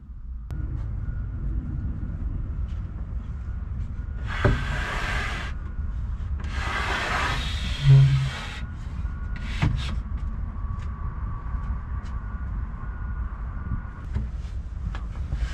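Wooden slatted bed frame being slid out: two long scraping slides, the second ending in a heavy thump as it comes to a stop, followed by a few light knocks. A steady low rumble underneath.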